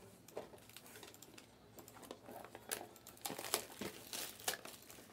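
Faint crinkling and crackling of plastic wrapping being handled, sparse at first and more frequent from about two seconds in.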